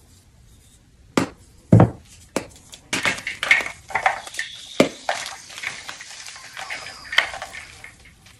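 A block of Chalklate gym chalk crushed in the hand: a few sharp cracks as it breaks apart, then a dense run of crunching and crumbling as it falls to pieces.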